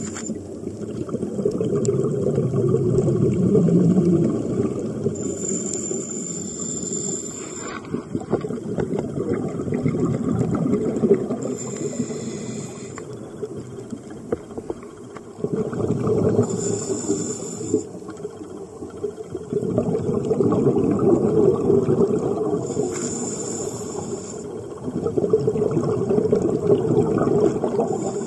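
Scuba diver breathing through a regulator: a short hissing inhale about every five to six seconds, each followed by a longer, louder rush of bubbles from the exhalation.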